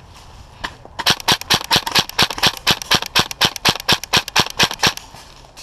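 Mk18-style airsoft rifle firing a rapid string of shots, about seven a second, for about four seconds, after a single shot just before.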